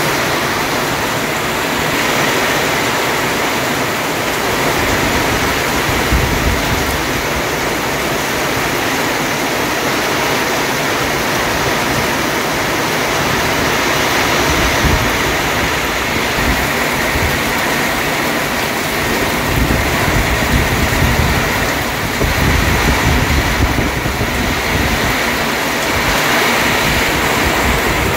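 Heavy rain falling steadily, a dense even hiss. A low rumble swells and fades several times, strongest about two-thirds of the way through.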